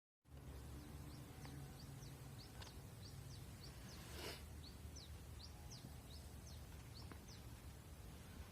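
Eurasian tree sparrow chirping: a run of short, high chirps, about two a second, faint over a low steady background rumble. A brief hiss sounds about four seconds in.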